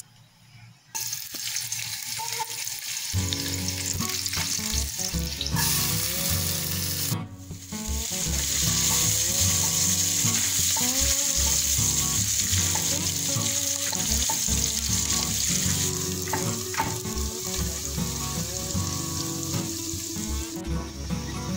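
Diced green bell pepper and garlic frying in oil in a pot, sizzling steadily while being stirred with a spatula. The sizzle starts about a second in and gets louder from about eight seconds in.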